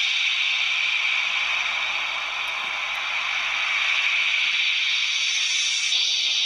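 CSM Altering toy transformation belt playing its finisher sound effect through its built-in speaker: a steady, loud, hiss-like rush.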